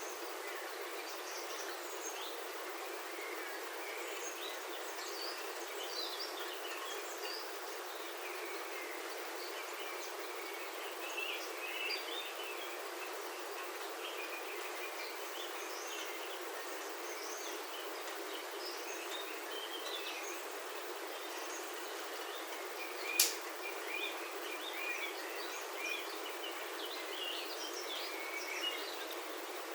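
Steady rain on a roof heard from indoors, an even patter, with birds outside chirping and calling throughout. One sharp tick stands out about two-thirds of the way through.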